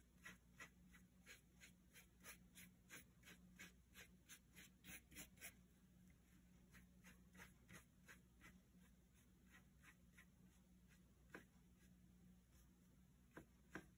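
Faint scratching of a paintbrush stroking paint onto paper in short, quick strokes, about two to three a second, thinning out after about five seconds. A couple of light taps near the end.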